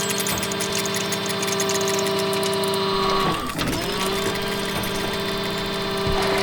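A construction-vehicle engine or motor sound effect running steadily with a fast mechanical whir. It dips and drops in pitch briefly about three seconds in, then carries on.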